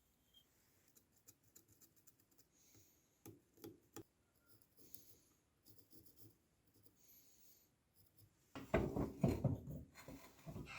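Faint scratching and light tapping of a pen or scribe marking a design on knife handle material. A much louder, rougher rubbing sound starts near the end.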